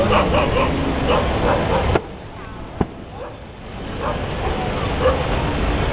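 Dogs barking in short repeated barks, with voices, over a steady low rumble. About two seconds in the sound drops sharply for a couple of seconds, and a single sharp pop comes shortly after the drop.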